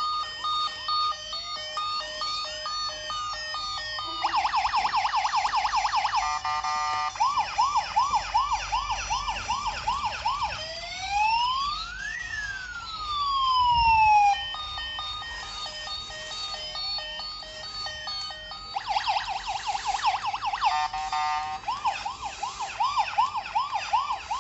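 Toy police car's electronic siren sound effect, cycling through patterns: slow rising and falling wails, a burst of fast yelping sweeps, then quick repeated chirps, with the sequence starting over about halfway through.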